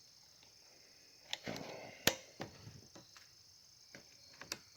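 A few faint, sharp clicks and a soft rustle from handling gear, with the loudest click about two seconds in. A steady high chorus of crickets runs underneath.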